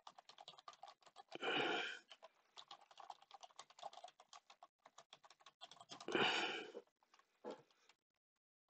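Typing on a computer keyboard: a run of quick key clicks as a username and password are entered. Two louder half-second bursts of noise come about a second and a half in and about six seconds in.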